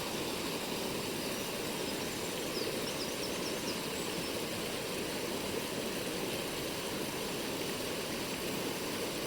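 Mountain stream rushing steadily over rocks. A few faint, short high chirps come about three seconds in.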